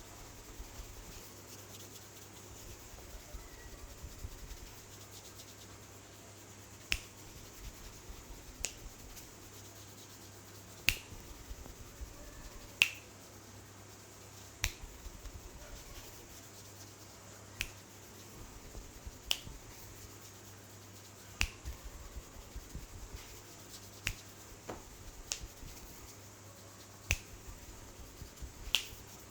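Sharp finger snaps, starting about seven seconds in and then coming roughly one every one to two seconds, each with a short bright ring.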